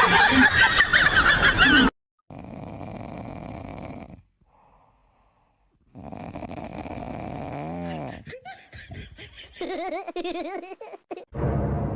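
Laughter in several short stretches, broken by sudden cuts and a near-silent gap of about two seconds in the middle.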